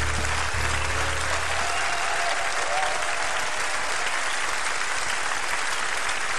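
Studio audience applauding, with backing music that stops about two seconds in, leaving the applause alone.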